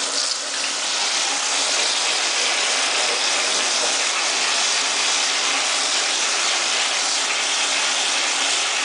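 Water spraying steadily from a handheld shower head into a bathtub.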